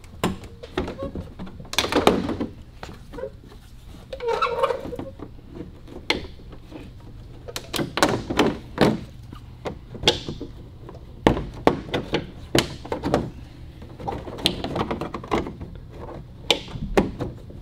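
Plastic rivets being popped loose and a Jeep JL's plastic inner fender liner being worked free: irregular clicks and knocks with a few short scraping stretches.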